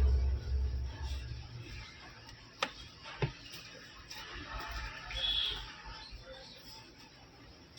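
A low rumble of intro music dies away. Then come two sharp clicks about half a second apart and a faint rustle, with the bench otherwise quiet.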